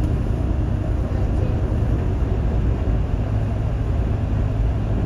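Steady low rumble of a running vehicle, even throughout with no distinct events.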